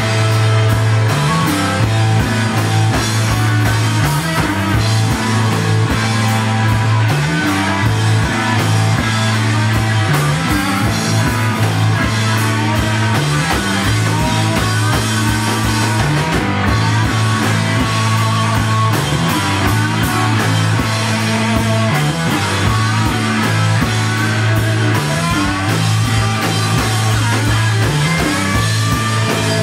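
A rock band playing live: loud distorted electric guitar over a repeating bass riff and a steady drum beat.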